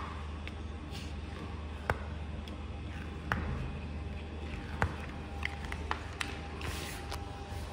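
Handling of a hot-melt-coated foam sheet and its release paper: several sharp clicks and taps, with a brief paper crackle near the end as the release paper is peeled back. A steady low hum runs underneath.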